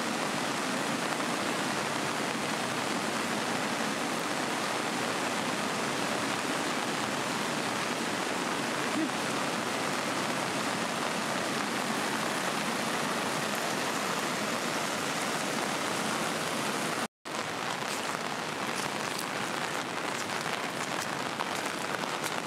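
Heavy rain mixed with the steady rush of a flooded river. About seventeen seconds in the sound cuts out for an instant, then the rain returns with scattered sharp drop hits.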